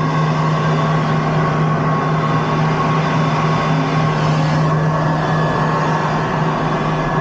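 A farm tractor with its planter runs steadily in the background, a constant low hum under an even mechanical noise that does not change.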